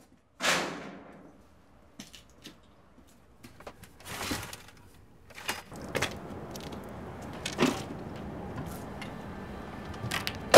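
A metal shed door banging open, then scattered knocks, clunks and handling noises as gear is carried out, ending in a loud slam.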